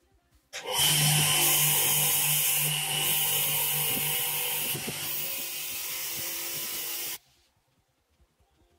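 Bench grinder's spinning wire wheel scrubbing rust off a small screw, over a steady motor hum. The scrubbing is loudest for the first few seconds, then eases, and cuts off abruptly near the end.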